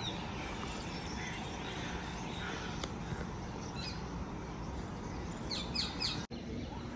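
Steady outdoor background noise with a few faint bird chirps here and there, and a quick run of several chirps about five and a half seconds in. The sound cuts out for an instant just after six seconds.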